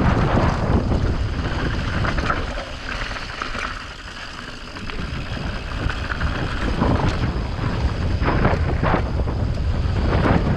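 Wind buffeting the microphone of a camera on a mountain bike riding fast downhill, with the tyres rolling over loose dirt and rocks and short knocks and rattles as the bike hits bumps. The wind eases for a moment about four seconds in, then picks up again.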